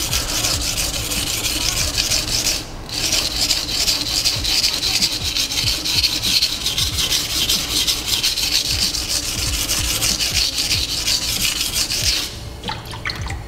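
Steel blade of a Nishida kurouchi petty knife stroked rapidly back and forth on a coarse 220-grit Naniwa waterstone, a gritty rubbing hiss: heavy grinding to remove a chip from the edge. The strokes pause briefly about three seconds in and stop about a second before the end.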